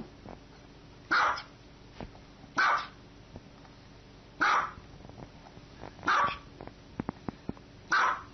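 Small white Maltese-type dog barking: five short, sharp barks spaced about a second and a half apart.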